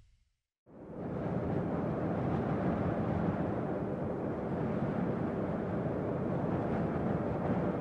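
Steady wind rushing, fading in after a short silence near the start.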